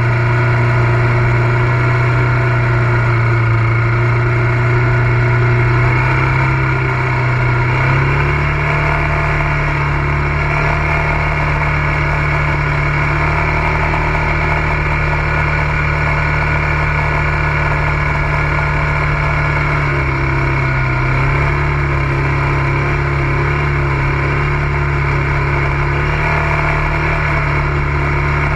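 ATV engine running at a steady speed, its note stepping up about eight seconds in and dipping briefly around twenty seconds in.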